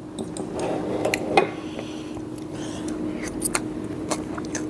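Cutlery and crockery clinking and knocking now and then at a table during a meal, over a steady low hum.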